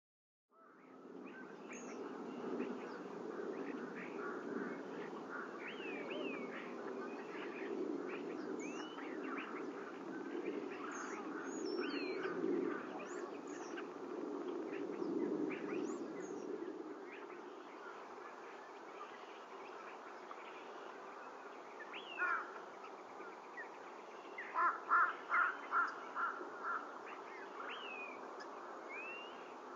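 Wild birds chirping and calling on and off over a low steady background noise that eases a little past halfway. About twenty-five seconds in comes a run of about six loud, evenly spaced calls, roughly three a second.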